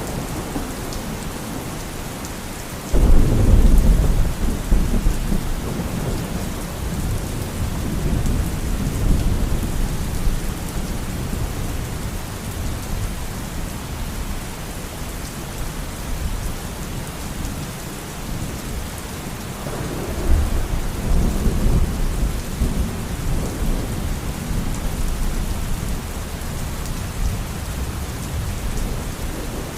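Steady heavy rain with rolling thunder: a loud low rumble breaks in suddenly about three seconds in and dies away over several seconds, and a second rumble rolls through about two-thirds of the way in.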